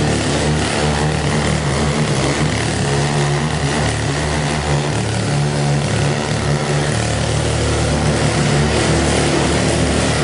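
The small engine of a walk-behind tiller, the Nichino 308B-Type cement tiller, running steadily at a constant speed.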